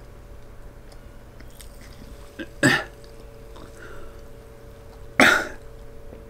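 Two short, loud sounds from a man's throat, about two and a half seconds apart, as gas comes back up after chugging a bottle of Coca-Cola. A faint steady hum runs underneath.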